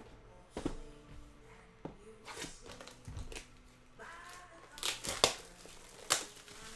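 Trading cards and foil pack wrappers being handled: a string of short clicks, taps and rustles, loudest about five seconds in. Faint singing of the national anthem from a TV broadcast underneath.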